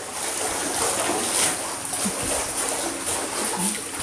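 Pool water splashing and churning as a Boston terrier paddles and a person kicks along on a bodyboard.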